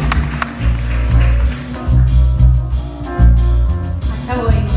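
Small live band playing jazzy music: drum kit with cymbal strokes over deep bass notes, with guitar and piano.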